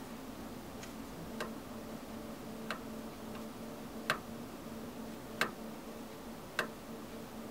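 A series of sharp clicks, about six, unevenly spaced a second or so apart, the loudest about four and five and a half seconds in, over a faint steady hum.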